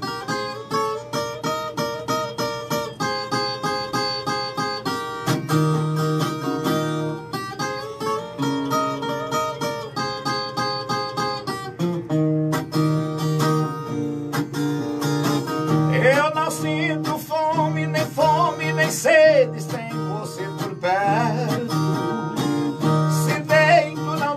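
Brazilian viola with doubled steel strings playing an instrumental interlude between sung verses: a plucked melody over repeated bass notes.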